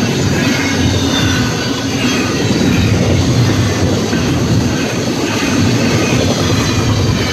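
Union Pacific double-stack container train rolling past at high speed: a loud, steady rush of wheels on rail.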